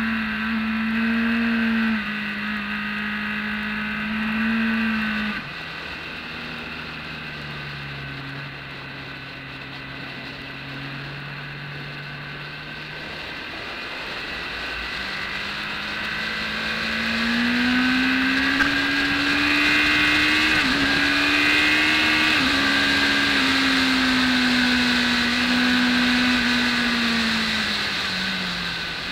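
BMW K1200S inline-four engine heard from an onboard camera with wind rushing over the microphone. The note drops as the throttle closes about five seconds in and stays low through a long corner. It then climbs as the rider accelerates hard, with two brief breaks in the note, and falls again near the end.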